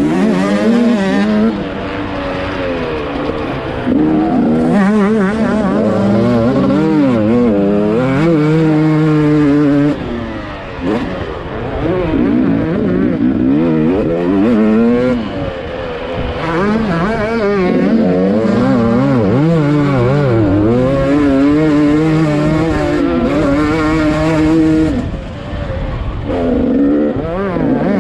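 Two-stroke motocross bike engine racing under hard throttle. Its pitch climbs and drops again and again through gear changes and throttle chops. There are brief let-offs about ten seconds in and again near the end.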